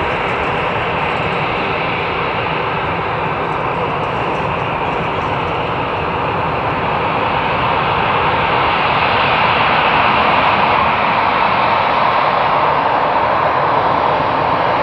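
Jet airliner engines at taxi power: a steady rushing noise that swells a little just past the middle.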